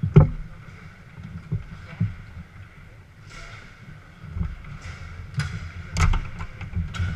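Foosball play on a Garlando table: sharp knocks and clacks of the ball striking the plastic men and the table walls, with the loudest knocks just after the start and about six seconds in. Underneath runs the murmur of a busy hall with other tables.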